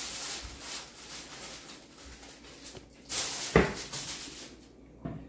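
Rustling and handling noises, with a louder scrape about three seconds in that ends in a sharp knock, and a lighter knock near the end.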